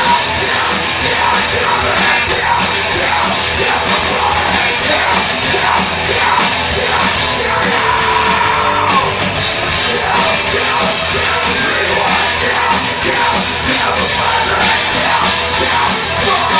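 Live rock band playing loudly, with shouted vocals over the guitars and drums.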